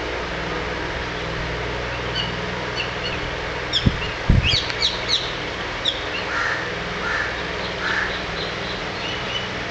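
Birds in a large tree chirping and calling: quick high chirps through the middle, then a series of short harsh calls, like crows cawing, in the second half. All of it sits over a steady low hum, with two low thumps about four seconds in.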